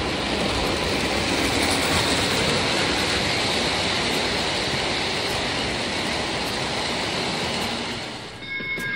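Lionel O-gauge model train rolling past close by on its track: a steady rumble and clatter of metal wheels on the rails as the locomotive and Polar Express passenger cars go by. The sound drops away about eight seconds in.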